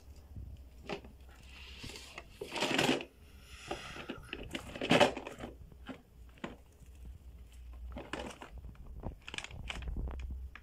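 Plastic packaging crinkling and rustling in irregular bursts, with small knocks, as a toddler rummages among wrapped packages and bags. The louder rustles come about two to three seconds in and again about five seconds in, over a steady low hum.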